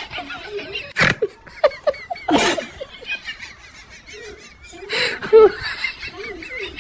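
A person laughing, with high wavering squeals and a sharp knock about a second in.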